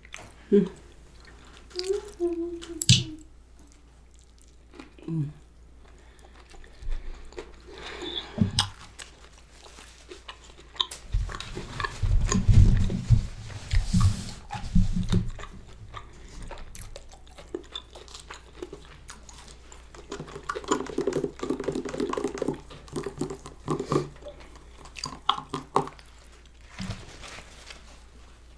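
Close-miked chewing and biting of fast food, with wet mouth clicks and some crunching, and a louder stretch of heavy low thumps about halfway through.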